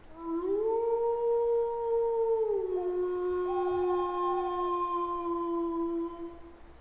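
Wolf howls: a long call rises about half a second in, holds, then drops and holds until it fades near the end, with a second, higher howl overlapping it.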